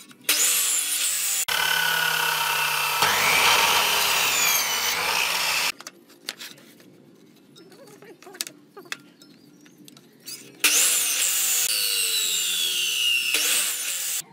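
Electric miter saw crosscutting a wooden board twice: the motor whines and the blade cuts for about five seconds, its whine dropping in pitch near the end of the cut. A quieter pause with light knocks of wood being handled follows, then a second cut starts about ten seconds in.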